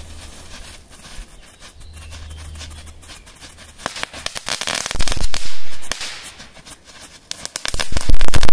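Small firecrackers (gromovitsy) going off in a rapid string of sharp bangs and crackles: a few scattered pops at first, then a dense, very loud volley about five seconds in and another near the end.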